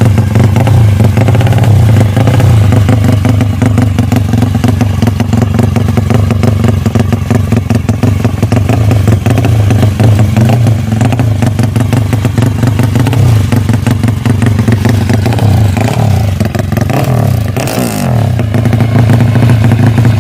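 Four-valve drag-bike motorcycle engine with a loud open exhaust, running hard at a high, wavering idle. Near the end the revs rise and then fall away.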